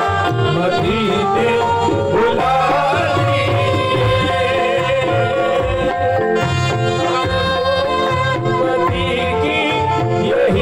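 Live qawwali music: harmonium and saxophone playing an ornamented, gliding melody over tabla, with a lead male voice singing.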